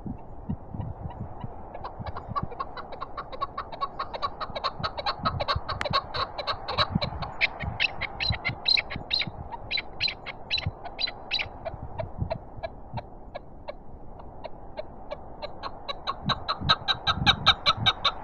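A chukar partridge calling: a long series of rapid, repeated clucking notes, several a second. The calls start about two seconds in, fade in the middle and pick up again near the end. Wind blows on the microphone underneath.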